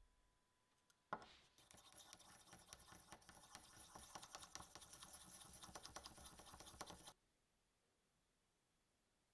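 A thin stick stirring paint in a small 14 ml metal enamel paint tin: a sharp click about a second in, then about six seconds of fast, faint scraping and clicking against the tin, stopping suddenly.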